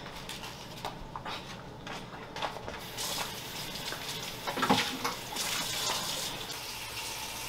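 A few light knocks and clinks, then a kitchen tap starts running into the sink about three seconds in and keeps running, with dishes knocking as they are rinsed.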